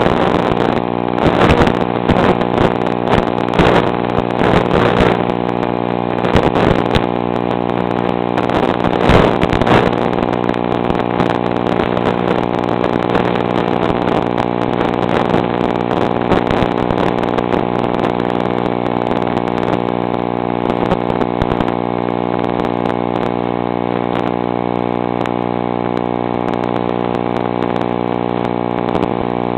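A motor running steadily at one constant pitch, with irregular knocks and gusts over it in the first ten seconds or so.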